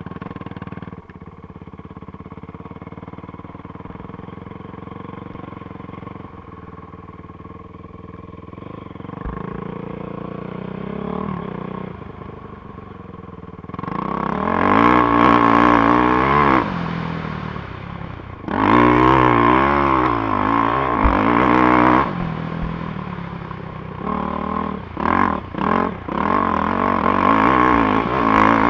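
450cc four-stroke dirt bike engine under way, running at light, steady throttle for the first half. About halfway in it is opened up hard in two long pulls, then given a quick run of short throttle blips near the end.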